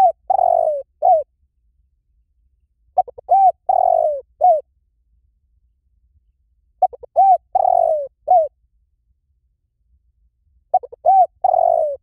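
Spotted dove cooing: a repeated phrase of a few quick stuttering notes, then a short coo, a long coo that falls away and a final short coo. The phrase comes about every four seconds.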